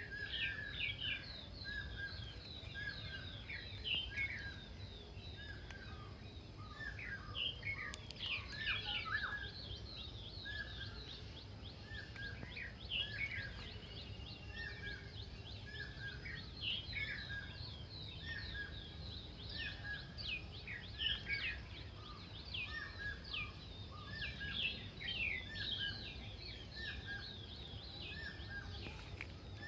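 Woodland birdsong: several birds chirping and calling at once, one of them repeating a short note over and over, over a steady low rumble.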